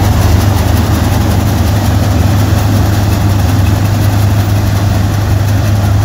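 Punni Grain Cruiser combine harvester running steadily: a loud, unbroken low engine hum with a broad mechanical rush over it.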